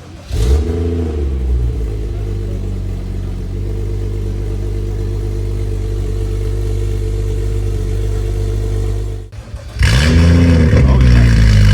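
A BMW N55 turbocharged inline-six starts through a valved aftermarket exhaust, flares up and settles into a steady idle. About nine seconds in the sound cuts off, and the engine starts again, flares and idles louder: the exhaust valves open compared with closed.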